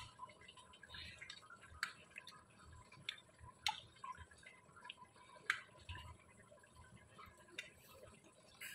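Faint sounds of liquid gelatin being spooned from a pan into eggshells: a few light clicks of a metal spoon, about every two seconds, with soft dripping.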